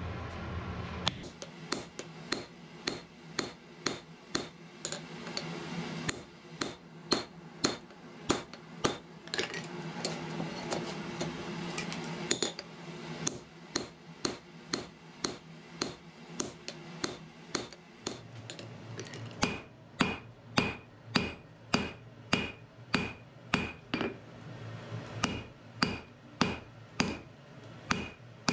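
Hammer striking a handled top tool set on a red-hot wrought iron bar on the anvil: steady blows, about two a second. From about two-thirds of the way in the blows ring sharper and more metallic.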